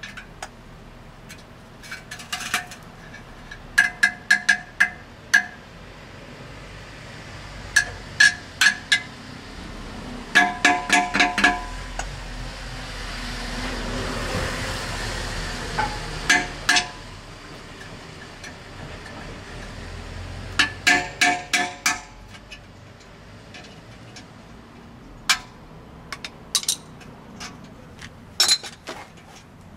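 Steel exhaust pipe of a Hyundai Porter 2 truck struck with a hammer at the muffler joint. The strikes come in quick bursts of several ringing metallic clinks each, working the old muffler loose. Midway a broad rush of noise rises and fades.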